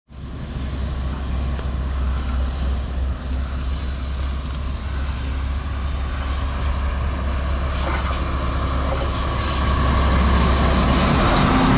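A Sri Lankan diesel train running close by: a deep steady rumble with thin high-pitched wheel squeals from the rails, getting louder toward the end.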